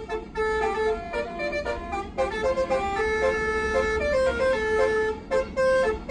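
Bus basuri telolet air horns playing a quick melody: a string of short and held notes stepping from pitch to pitch, over the low rumble of the moving bus.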